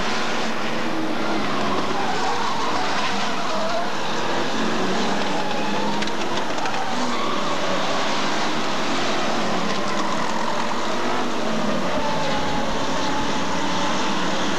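Several Hot Stox stock cars racing round an oval track. Their engine notes rise and fall as the cars accelerate and pass, blending into a continuous, steady level of engine noise.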